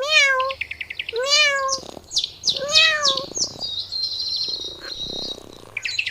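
A kitten meowing three times, each a short call that rises and falls in pitch, about a second and a half apart, with high bird chirps and trills around them.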